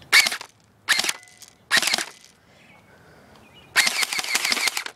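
Electric airsoft rifle firing on semi-auto: three single shots a little under a second apart, then a quick string of shots lasting about a second near the end.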